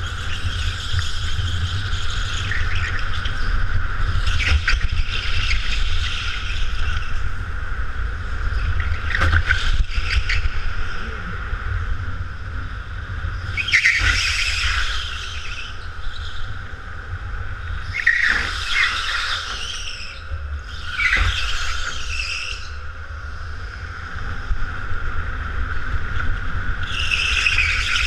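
Go-kart tyres squealing in repeated one- to two-second bursts through the corners, over the kart's steady drone and a low, continuous rumble of chassis vibration.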